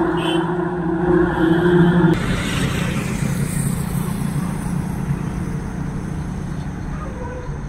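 Loaded heavy flatbed truck's engine running as it drives away. A steady engine drone for about the first two seconds gives way abruptly to broader engine and road noise that slowly fades as the truck moves off.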